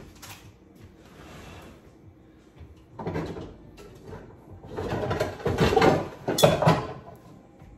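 A low kitchen cupboard being opened and rummaged through: a short scrape about three seconds in, then a couple of seconds of things clattering and knocking, with a sharp knock near the end.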